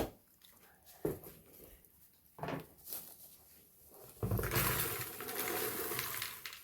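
Popped popcorn poured from a silicone microwave bowl into a serving bowl, rustling and tumbling for about two seconds, after a couple of light knocks.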